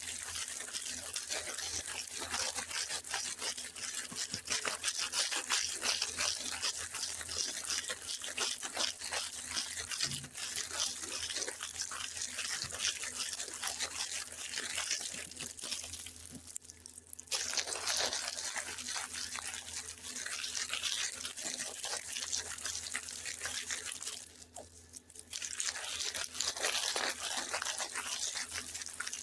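Plastic sweet packaging crinkling and rustling as it is handled and opened: a dense, continuous crackle that pauses briefly twice.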